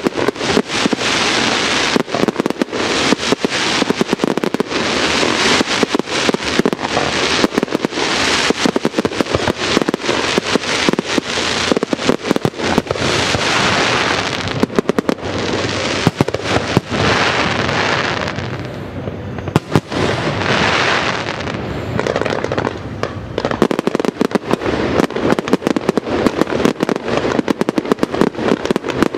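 Aerial fireworks display: a dense, continuous barrage of shell launches and bursts, easing briefly about two-thirds of the way through before building up again.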